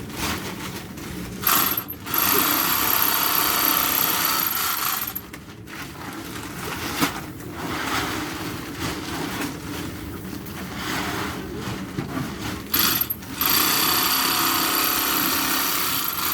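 Portable electric bag-closing sewing machine stitching filled wheat sacks shut, running twice: a loud whining run of about three or four seconds early on, another near the end, with rough handling noise between.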